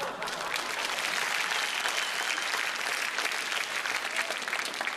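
Studio audience applauding, dense and steady clapping.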